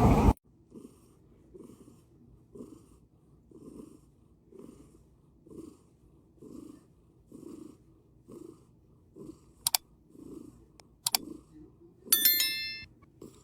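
Cat purring softly in a slow, even rhythm, about one swell a second. Two sharp clicks come late on, and a brief high ringing sound comes near the end.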